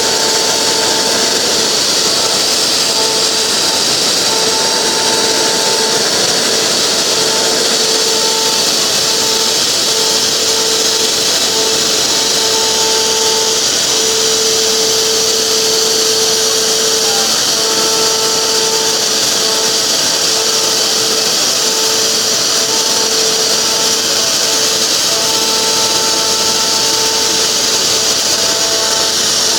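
PromaX TOP4020 CNC panel machining centre running its router spindle through aluminium composite panel: a steady hiss with a whine that keeps breaking off and returning.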